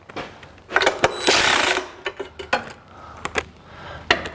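Cordless impact gun on a long extension running in a burst of about a second, spinning off loosened catalytic converter nuts, followed by scattered metallic clicks and clinks of the socket and parts.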